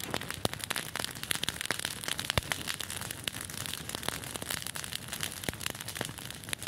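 Dry grass and brush fire crackling, with rapid irregular pops and snaps.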